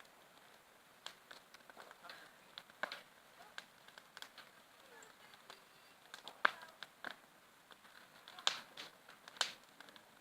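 Bonfire crackling faintly, with scattered sharp pops, the loudest three about six and a half, eight and a half and nine and a half seconds in.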